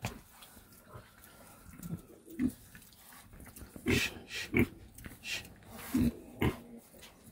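Pigs grunting as they eat from a feed pan: a series of short, separate grunts.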